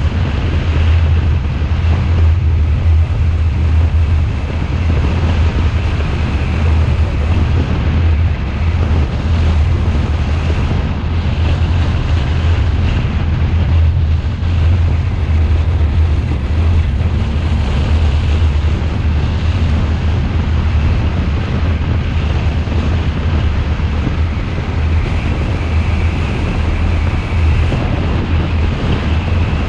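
A car driving at a steady speed, picked up as a constant low rumble of wind buffeting the microphone mixed with tyre and road noise.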